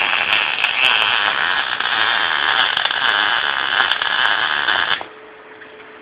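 MIG welding arc from a Thermal Arc Fabricator 181 laying a pass on steel with solid steel filler wire: a loud, steady crackle that cuts off suddenly about five seconds in as the arc is broken. A faint steady hum remains afterwards.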